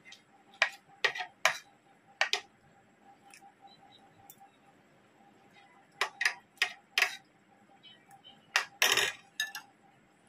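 Metal fork and spoon clinking and scraping against a ceramic plate while eating: a few sharp clinks early, then a quicker run of them, ending in a longer, louder scrape about nine seconds in.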